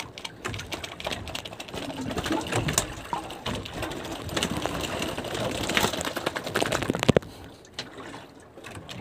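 Quick, irregular run of taps and clicks, like a fast rattle, as a freshly caught skipjack tuna is handled on its line, thinning out and quieter near the end.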